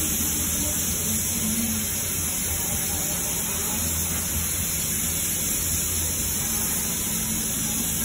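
Steady background hiss with a low hum underneath, constant throughout, with no distinct knocks or clicks standing out.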